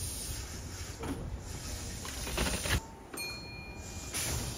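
Electric commuter trains at a station platform: low rumble and hiss, a few clunks around two and a half seconds in, then a brief steady electronic tone lasting about a second.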